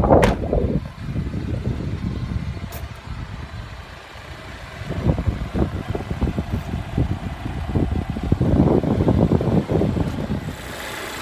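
A car door shuts with a sharp thud just at the start. After that comes an uneven low rumble from the 2016 Volvo XC90 T6's supercharged and turbocharged 2-litre inline four-cylinder, idling.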